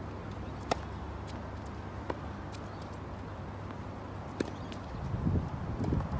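Tennis ball struck by a racket on a serve, a sharp crack about a second in, then a fainter hit from the far end and another near racket hit about four seconds in, with lighter ball bounces between. Shoes scuff on the hard court near the end over a steady low rumble.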